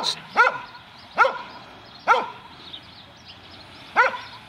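A dog barking in single, separate barks, four or five of them, with a gap of about two seconds before the last.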